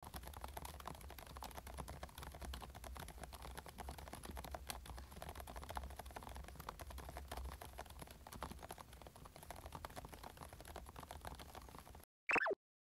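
Typing on a Varmilo Minilo 75% mechanical keyboard with Prestige Silence switches: a quiet, dense patter of key presses. It cuts off about twelve seconds in, followed by a short, louder falling swoop.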